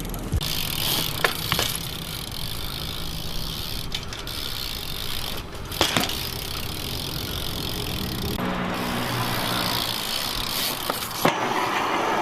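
BMX bike being ridden, its tyres rolling with a steady hiss, with a few sharp knocks and rattles from the bike.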